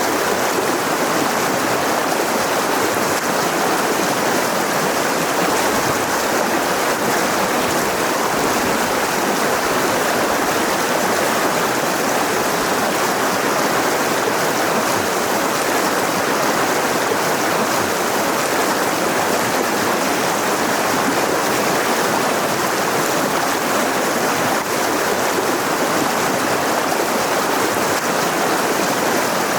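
Mountain river rushing over rocks: a steady, unbroken wash of flowing water.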